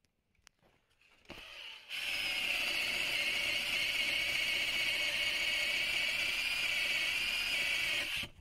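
Cordless drill with a long bit boring a hole through a timber board: a brief start about a second in, then the drill runs steadily for about six seconds and stops just before the end.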